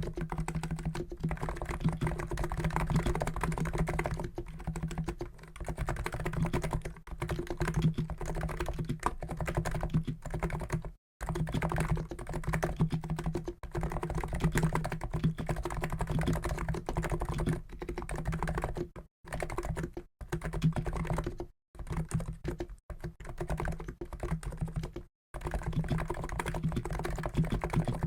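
Continuous typing on a COX Endeavour keyboard with Niz electro-capacitive switches (50 g), a dense run of key strokes broken by a few short pauses.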